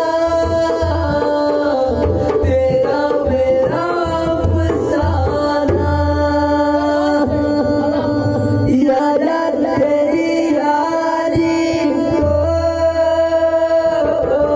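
Male voice singing a Hindi song, accompanied by a dholak hand drum beating out a rhythm and a steady held drone underneath.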